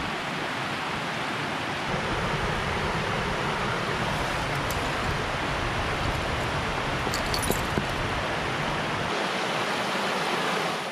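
Shallow, rocky river rushing over small rapids around stepping stones: a steady, even rush of water.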